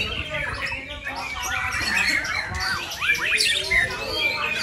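Several caged white-rumped shamas singing at once: a dense, continuous tangle of quick whistles, trills and chirps, many sweeping up and down in pitch.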